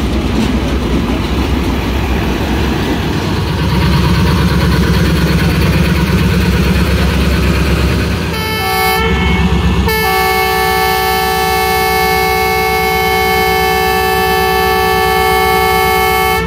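Diesel locomotive (Pakistan Railways ZCU-30) running close by with a loud low engine rumble, then its air horn: a short blast about eight seconds in, followed by a long held blast, a chord of several steady tones, that cuts off near the end.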